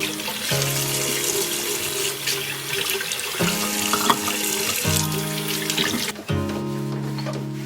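Water running from a tap into a sink, an even rushing hiss that stops about six seconds in, with background music underneath.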